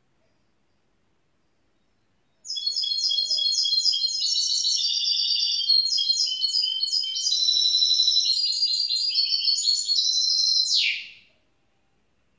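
A young goldfinch × canary mule sings one long phrase of rapid, high chirps and trills. It starts a couple of seconds in, runs for about nine seconds, and ends on a single falling note.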